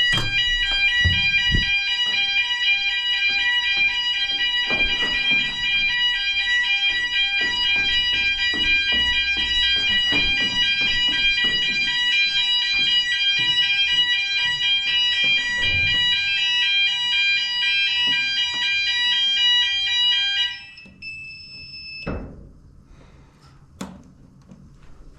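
Building fire alarm sounders going off in a weekly fire alarm test, a loud, steady, shrill multi-tone alarm. It cuts off suddenly about 20 seconds in, followed by a brief higher beep and a single knock.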